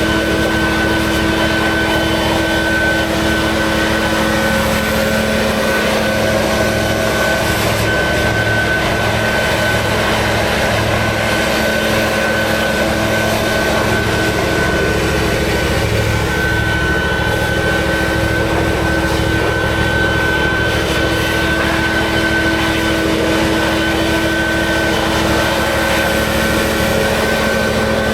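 Gasoline lawn mower engine running steadily at mowing speed, with a constant high whine over the engine note.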